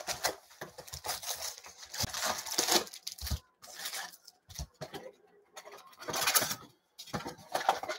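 Trading-card packs in crinkly foil wrappers rustling as they are lifted out of a cardboard box and handled, with a couple of soft knocks near the middle as packs are set down.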